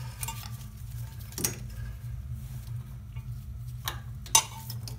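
Small metallic clicks and clinks of hand tools and brake-line hardware being handled, with a sharp click about a second and a half in and a louder one near the end, over a steady low hum.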